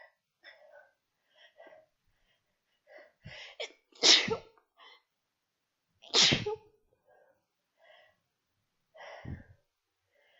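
A woman sneezing twice, hard, about two seconds apart. The sneezes are deliberately induced. Quieter breaths and sniffles come before, between and after them.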